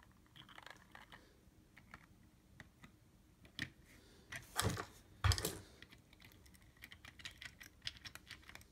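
Small clicks and knocks of hard black plastic parts as a top plate is pressed down over a base onto its locating pins, with two louder knocks about halfway through as it snaps into place.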